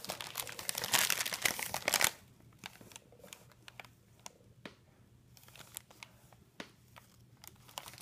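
Paper snack bag crinkling as a cat bites and paws at it: dense rustling for about the first two seconds, then faint scattered crinkles.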